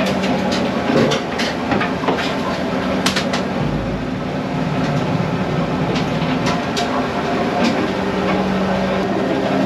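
A fishing boat's engine and machinery running with a steady drone, with scattered light clicks and knocks from prawns and cardboard boxes being handled on deck.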